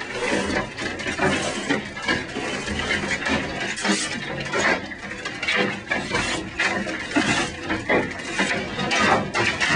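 Large hailstones, golf-ball to baseball size, pounding a high-rise building: a dense, irregular clatter of hard impacts that keeps up without a break.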